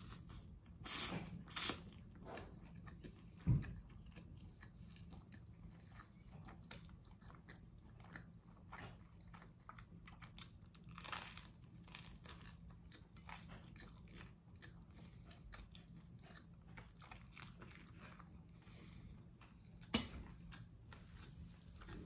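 Close-miked eating: chewing and biting with scattered crisp crunches, including bites into toasted garlic bread near the middle, between soft chewing of spaghetti.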